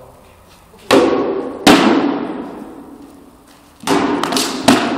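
Four heavy weapon blows striking round wooden shields in two quick pairs during sparring, each hit echoing and fading slowly in a large hall.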